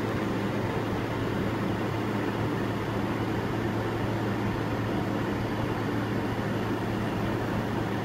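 Steady low hum with an even hiss over it, unchanging throughout.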